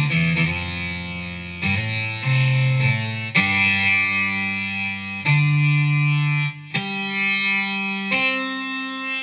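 Guitar played through a BOSS SY-200 synthesizer pedal, giving sustained synth notes. A new note or chord starts sharply about every one and a half to two seconds.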